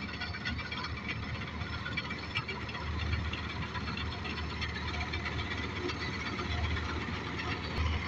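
Hind 999 combine harvester working under load as it cuts and threshes a standing grain crop: a steady din of engine and threshing machinery with a deep rumble underneath.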